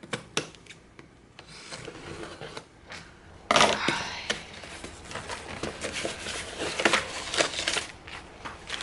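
A package being unpacked by hand: a few light taps and clicks, then from about three and a half seconds in, steady rustling, rubbing and crinkling of the box and its packing.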